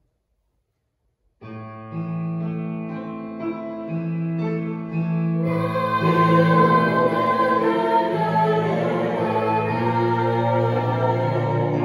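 Mixed teenage choir singing in parts. After about a second and a half of dead silence it comes in on sustained chords, and about five and a half seconds in the sound grows fuller and louder as more voices join.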